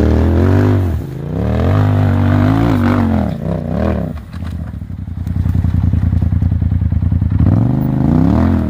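Polaris RZR side-by-side's engine revving hard as it crawls up a loose rocky slope, its pitch rising and falling with the throttle. About four seconds in it drops to a lower, pulsing rumble, then revs up again near the end.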